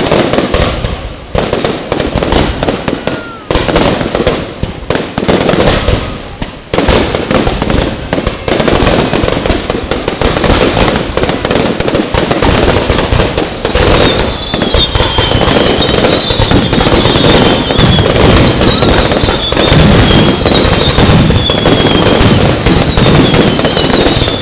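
Aerial fireworks going off in a dense, rapid barrage of bursts and crackling. The bursts come in separate volleys at first and merge into an almost continuous roar of explosions from about a quarter of the way in. High falling whistles join in during the second half.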